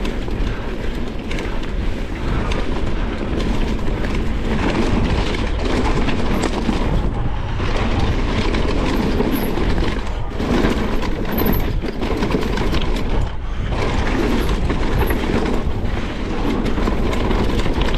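Enduro mountain bike riding down a rough trail: a continuous rumble of tyres over rocky ground and the rattle and clatter of the bike, with two brief lulls about ten and thirteen seconds in.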